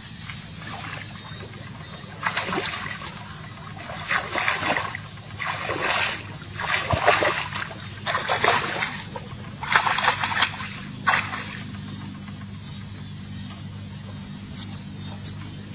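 Splashing of legs wading through shallow, muddy pond water: a series of about seven separate sloshes one to two seconds apart, then it dies away in the last few seconds.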